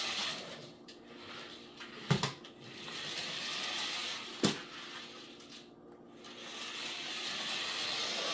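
Adventure Force mini RC truck's small battery-powered electric motor and gears whirring as it drives over a laminate floor, swelling and fading a few times. Two sharp knocks come about two seconds apart.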